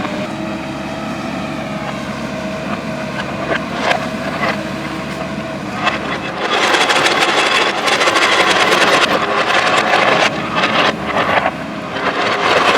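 JCB backhoe loader's diesel engine running steadily. About halfway through it turns louder and harsher, with clattering.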